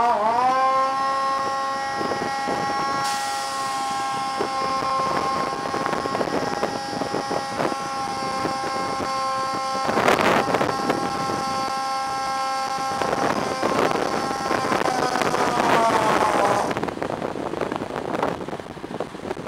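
A fire engine's pump primer whines steadily as the pump draws water up from a portable dump tank (drafting). About ten seconds in there is a brief loud clatter. Near the end the whine sags in pitch and cuts off as the pump takes its prime, over the noise of water pouring from the tanker's dump chute into the tank.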